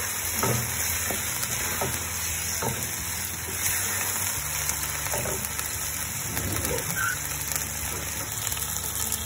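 Chicken pieces sizzling as they fry lightly in oil in a nonstick pot. A wooden spatula scrapes and knocks against the pan as the chicken is stirred, the knocks thinning out in the last few seconds.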